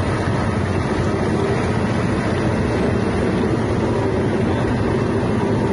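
Small engine driving a machine that separates plastic wrappers from expired bread, running steadily at an even speed.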